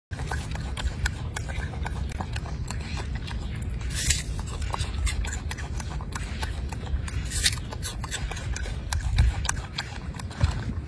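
Golden snub-nosed monkey biting and chewing a piece of apple: a run of crisp crunching clicks, with louder crunches about four and seven and a half seconds in, over a steady low rumble.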